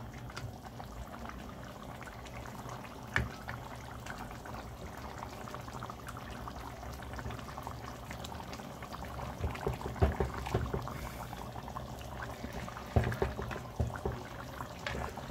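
Pot of tomato chicken stew with potatoes bubbling on the stove while a ladle stirs it, scraping and knocking against the pot, with clusters of knocks about ten and thirteen seconds in.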